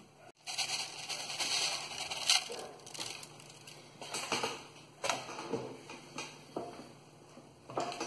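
Granular bonsai substrate poured from a plastic scoop into a plastic pot: a gritty, pattering pour lasting about two and a half seconds, followed by a few scattered light knocks and clicks as things are handled.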